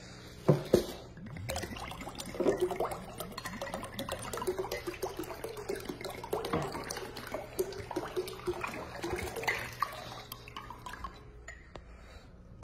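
Liquid glugging and gurgling out of an upturned glass bottle into a glass pitcher, in an uneven run of gulps. Two sharp clinks of glass come about half a second in.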